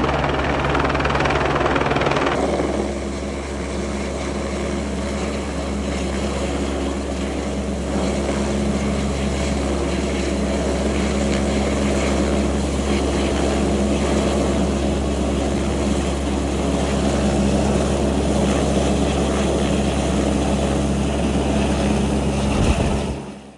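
Helicopter hovering low overhead while carrying an underslung load on a long line, its rotor and engine sound running steadily. The sound turns duller about two seconds in and fades out sharply just before the end.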